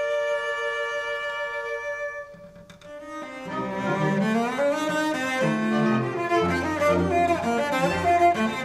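Solo cello with a string orchestra: a held string chord fades out about two and a half seconds in, then the cello comes in with a rising melodic line over the orchestra.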